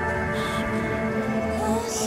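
Background music with sustained, layered notes.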